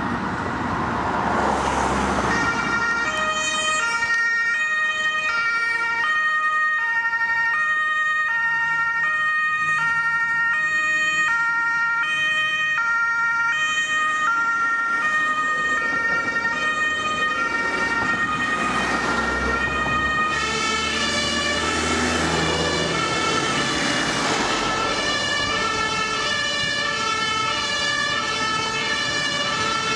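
German two-tone ambulance siren (Martinshorn) sounding on an emergency run, alternating steadily between a high and a low pitch. It starts about two seconds in, and its pitch shifts slightly about twenty seconds in, over the rumble of passing traffic.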